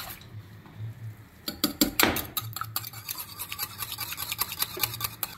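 Wire whisk beating raw eggs in a ceramic bowl: quick, rapid clicking and scraping of the tines against the bowl, getting busier about a second and a half in.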